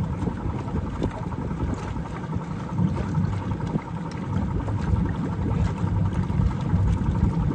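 Sterndrive boat engine running steadily with the throttle raised through a 1996 Volvo Penta SX drive, its exhaust churning and bubbling out into the water at the drive. The mechanic thinks the exhaust sound may be a leaking exhaust bellows.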